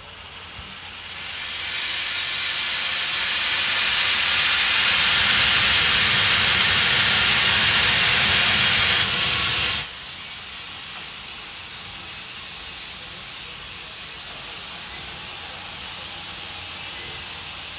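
Steam locomotive blowing off steam: a loud hiss that builds over the first two seconds, holds, then cuts off sharply about ten seconds in, leaving a quieter steady hiss.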